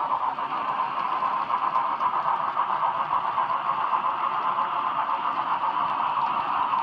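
N scale model freight cars rolling past on the track, their small metal wheels making a steady whirring clatter.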